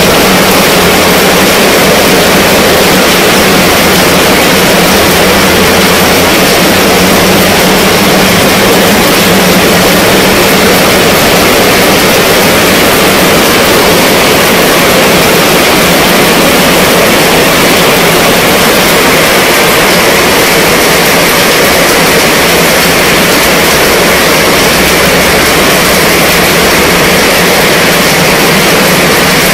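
Heavy rain falling on a fabric canopy tent overhead: a loud, steady, dense patter with no break.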